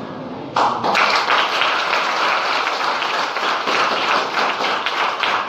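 Audience applause that breaks out suddenly about half a second in and carries on steadily, many hands clapping at once.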